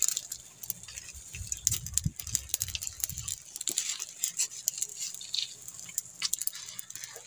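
Fish grilling over an open fire, with irregular sharp crackles and pops from the fire.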